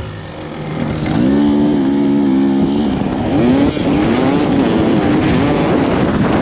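Dirt bike engine revving under throttle as it is ridden: the revs climb about a second in, hold, dip briefly near the middle and climb again, over a rough rushing noise.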